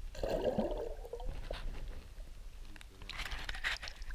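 Muffled water sloshing and bubbling picked up by a camera held underwater beside a released fish, turning to brighter splashing near the end.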